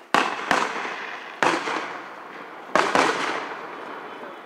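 Aerial firework shells bursting overhead: five sharp booms, two close together near the start, one a second later and another quick pair about three seconds in. Each boom trails off in a long fading echo.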